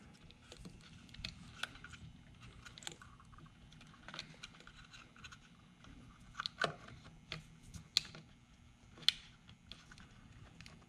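Light plastic clicks and handling sounds as fingers work a small electrical connector into the back of a steering wheel's switch module, with scattered sharp ticks and two louder clicks late on.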